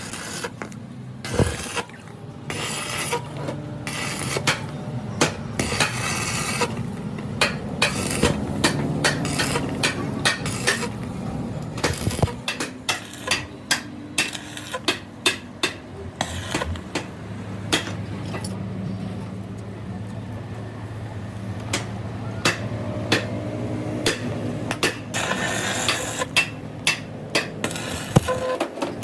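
Metal tools and steel axle parts clanking, with many sharp hammer-like strikes and clinks at an irregular pace, over a steady low hum.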